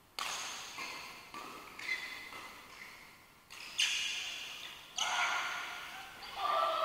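A badminton rally: rackets strike the shuttlecock about once a second, each sharp hit ringing on in the large hall.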